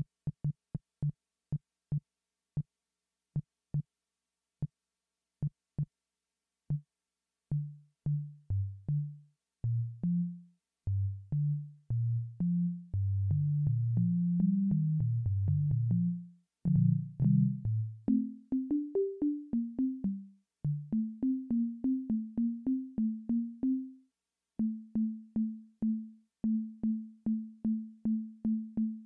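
Arturia Pigments software synthesizer playing a low, short-decaying bass patch, each note starting with a click. A few clicks come first, then a wandering bass line. It moves higher about two-thirds of the way through and ends on one note repeated about twice a second.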